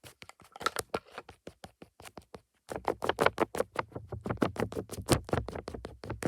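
Fast ASMR tapping and scratching right at the microphone, roughly ten quick taps a second. It gets louder and denser about three seconds in, where a low hum joins it.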